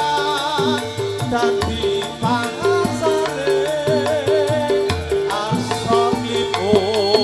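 Javanese gamelan music for a jathilan dance: a note repeats evenly about twice a second over drum strokes, with a wavering melody line above.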